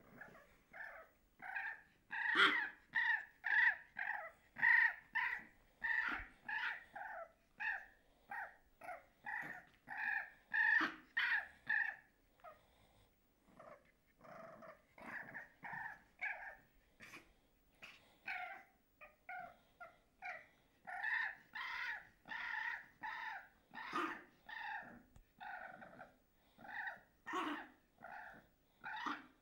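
French bulldog puppy play-growling while tugging on a toy, in a rapid rhythmic series of short growls, about two a second, that breaks off briefly about halfway and then resumes.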